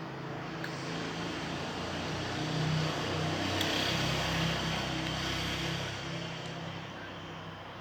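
A motor vehicle passing by: engine hum and road noise swell to a peak about four seconds in, then fade away.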